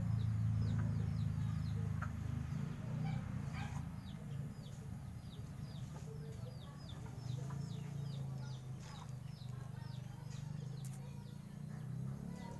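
Chickens clucking, with a long run of quick, high, falling chirps from a small bird, about three a second, over a steady low hum.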